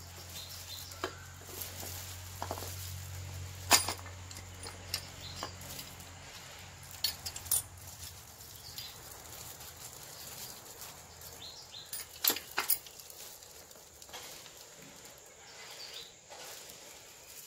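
Metal parts of a Toyota Premio's air-conditioning compressor clinking and knocking as it is dismantled by hand, with scattered sharp clicks; the loudest come about four seconds in and twice about twelve seconds in.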